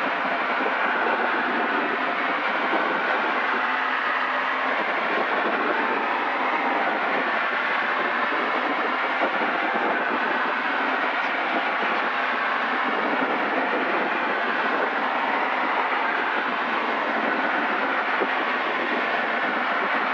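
Steady drone of engine, propeller and rushing air inside the cockpit of a Zenith CH750 Cruzer light aircraft in cruise flight, holding an even level without change.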